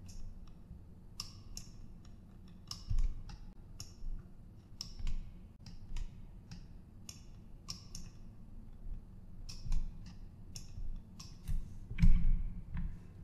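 Irregular clicking of a computer mouse and keyboard, a few clicks a second with short pauses. A heavier knock comes about twelve seconds in, as a numpad key is pressed to change the view.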